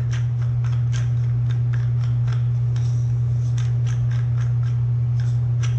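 Wooden peppermill grinding black pepper: a run of quick, irregular crunching clicks, over a steady low hum.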